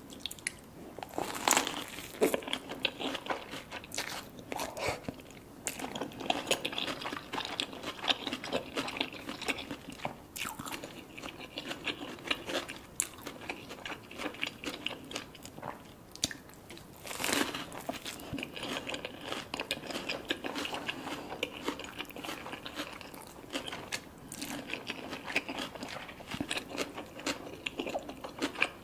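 A person biting into and chewing crunchy food, with a steady run of crisp crunches; two bites stand out as loudest, one shortly after the start and one past the middle.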